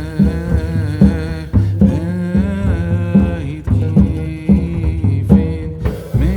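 Background song: a singing voice over a steady drum beat and bass line, with a brief break shortly before the end.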